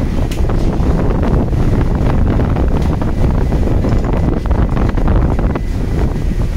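Wind buffeting the microphone on a fishing boat's open deck, a steady low rumble, with scattered light knocks and clatter from the crew working among the fish.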